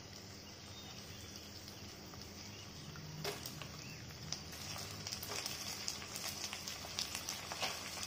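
Oil sizzling and crackling softly in a pan of frying onions and chillies as soaked chana dal is dropped in, with a few light clicks. The sizzle grows a little louder in the second half.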